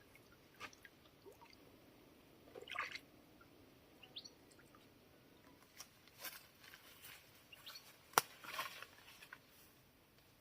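Sparse, faint rustles and clicks outdoors, the sharpest a single click about eight seconds in, with a brief bird chirp near the middle.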